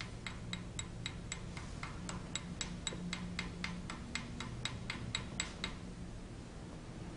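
Chipping hammer tapping slag out of a weld in a broken-stud hole in a steel block, about four light metallic ticks a second, stopping a little before the end.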